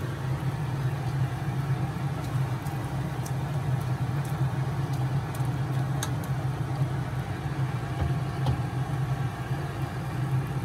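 Steady low kitchen rumble over a pot at a rolling boil on a gas stove, with a few faint clicks of a ladle against the pot around the middle.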